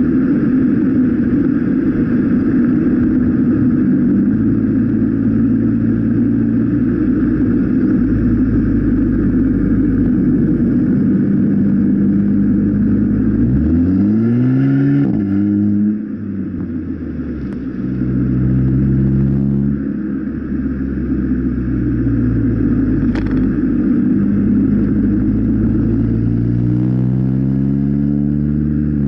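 Volkswagen Golf Mk7 1.4 TSI turbocharged four-cylinder petrol engine heard at the tailpipe, with the rear muffler removed and replaced by a 3-inch GTI-style Y pipe, giving a deep exhaust note. It runs steadily, is revved up and back down quickly about halfway, and rises again more slowly near the end.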